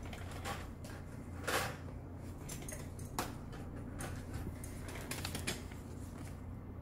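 Scattered light clicks and knocks of gloved hands handling a foot and a plastic spray bottle, a few separate taps over a couple of seconds each, over a steady low hum.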